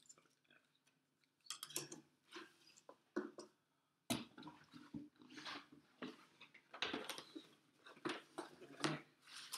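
Cardboard product boxes and plastic packaging being handled on a tabletop: scattered rustles, taps and knocks, with a few louder knocks after about four seconds.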